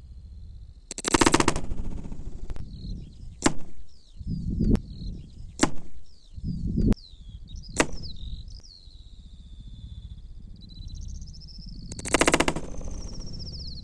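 Air rifle shooting pellets: two loud shots, about a second in and near the end, with several sharp cracks and dull thuds between them. Birds chirp in the background.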